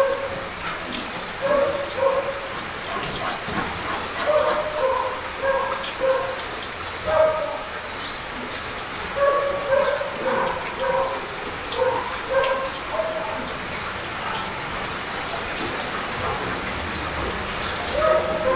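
A dog barking in short runs of a few barks, with a pause of several seconds before one more bark near the end, over steady light rain. Birds chirp faintly.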